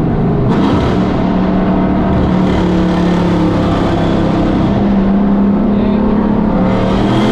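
Car engine running steadily at cruise, heard from inside the cabin while driving through a tunnel. Oncoming vehicles rush past about half a second in and again near the end.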